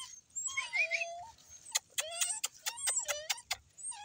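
Puppies whining and yelping: a high whine that falls in pitch, then a quick run of about a dozen short, high yelps in the second half.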